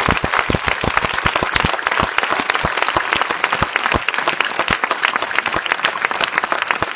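A large crowd applauding: many hands clapping in a dense, steady stream throughout.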